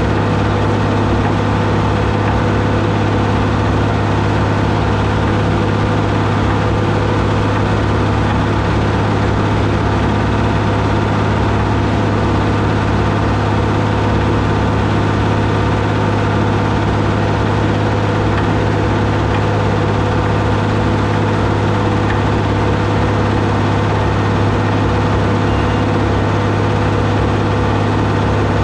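Deutz D130 06 tractor's air-cooled diesel engine running steadily at constant speed, a strong even hum with no change in pitch or level, while it pulls a round baler through hay.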